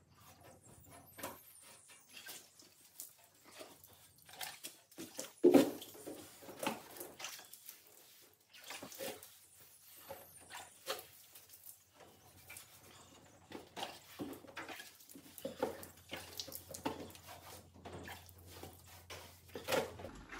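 Wet sponge and clean water worked over a galvanised bulkhead: irregular wiping, squelching and dripping while the salt residue of an acid etch is washed off. One louder short sound comes about five and a half seconds in.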